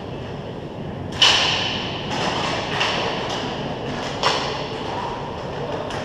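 Hockey sticks clacking sharply during play, several distinct knocks with the hard echo of a large arena after each, the loudest about a second in.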